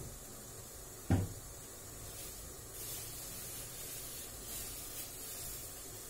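Grape juice boiling down in a steel pot on a gas stove, with a steady faint hiss. A single sharp thump, the loudest sound, comes about a second in.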